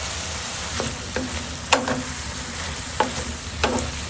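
Sliced courgettes frying in olive oil in a pan on a small wood stove, sizzling steadily as they caramelise, with about five sharp knocks of a utensil stirring them against the pan.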